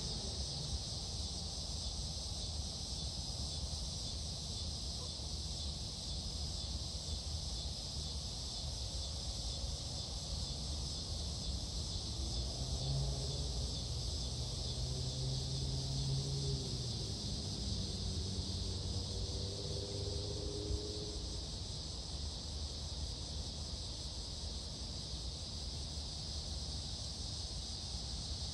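Steady high-pitched insect chorus over a low rumble, with a distant engine passing about halfway through, its pitch bending and then falling away.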